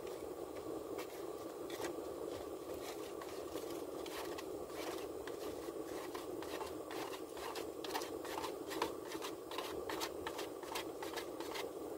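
Irregular small clicks and light scrapes of eating from a takeout container, over a steady hum inside a car cabin.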